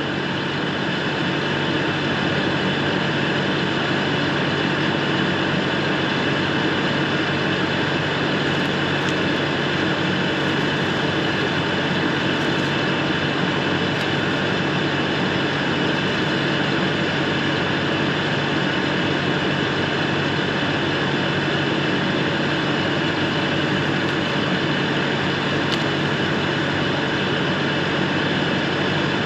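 LS MT573 tractor's diesel engine idling steadily, a constant hum that does not change in pitch.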